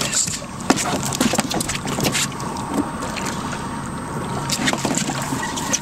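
Water splashing and sloshing against a boat's hull as a bull shark moves at the surface alongside, with wind buffeting the microphone in irregular gusts.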